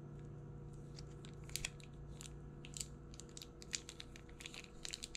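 Small plastic sauce packet crinkling as it is squeezed out between the fingers: a scatter of quick sharp crackles, over a steady low hum.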